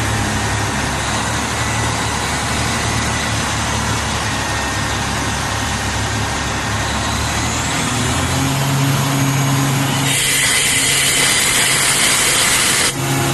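Ingersoll Rand compressor's engine running steadily just after starting. About eight seconds in, its hum steps up in pitch. About ten seconds in, a loud high hiss joins, breaking off for a moment near the end.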